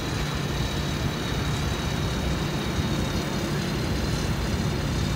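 A mobile crane's diesel engine running steadily under load while it lifts a race boat on slings: an even low rumble.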